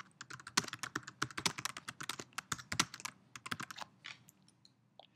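Typing on a computer keyboard: a fast run of keystrokes for about three seconds, thinning out to a few scattered clicks near the end.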